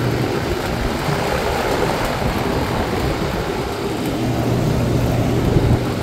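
Ruud Achiever 10 central air-conditioner condenser running: a steady rush of air from its top fan over a low, even compressor hum. The unit is working normally.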